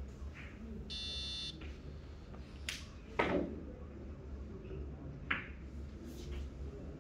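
Clacks of ivory-hard billiard balls on a carom table as a shot is played: a sharp click a little under three seconds in, a louder ball-on-ball knock half a second later, and another click about five seconds in. A short electronic beep sounds for about half a second around one second in, over a low steady hum.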